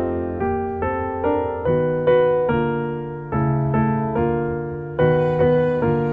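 Background piano music: a gentle melody of single notes, struck about two to three times a second, each fading away.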